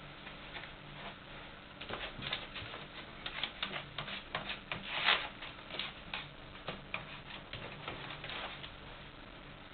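Light, irregular clicking and tapping, loudest about five seconds in.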